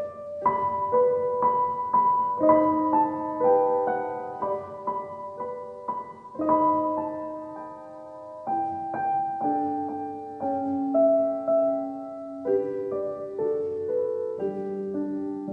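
Background piano music: a slow tune of struck notes and chords, new notes about every half second.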